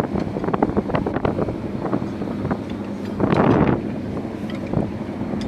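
A fishing boat's engine running with a steady hum and rapid knocking, with wind buffeting the microphone. A louder rush of wind or water comes about three seconds in.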